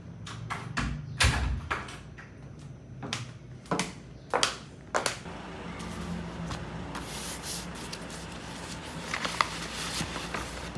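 A quick series of sharp knocks and clacks, like things being handled and set down, over the first five seconds, then a steady low noise with a few lighter ticks.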